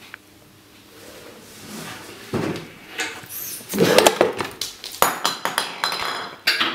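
Clinks and knocks of glass jars and a metal tin being handled on a wooden table. The sounds start about two seconds in and come thick and fast in the second half, some ringing briefly.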